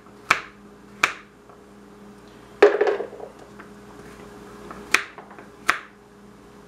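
Chef's knife chopping baby carrots on a wooden cutting board: about five sharp knocks of the blade on the board, spaced irregularly, the loudest a little under three seconds in.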